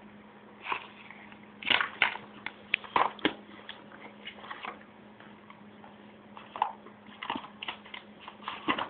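Irregular clicks, taps and knocks in small clusters, over a faint steady hum.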